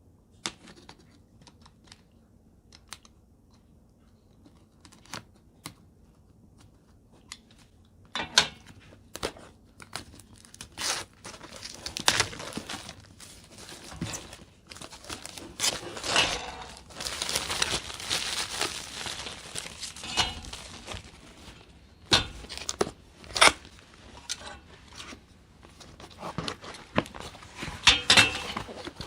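Massage gun box and its packaging being opened by hand: tearing, rustling and crinkling with scattered knocks and scrapes. It is sparse at first and gets busy about eight seconds in.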